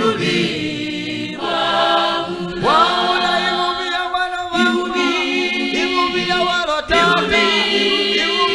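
Unaccompanied choir singing a Tonga-language gospel song in close harmony, phrase after phrase of held chords.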